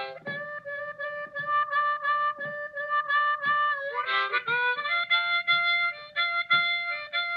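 Blues harmonica playing an instrumental break: held chords pulsed in a steady rhythm, then a bent note about four seconds in that moves into a higher phrase.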